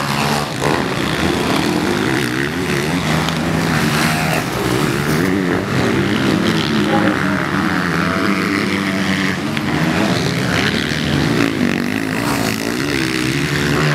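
Motocross bikes racing on a dirt track, their engines revving, the pitch rising and falling again and again as the riders work the throttle.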